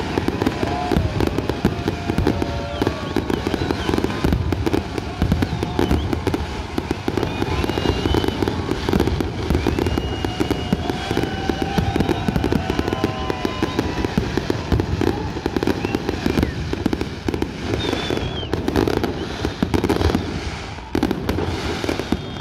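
Fireworks going off in quick succession: a dense, continuous crackling and banging of many shells.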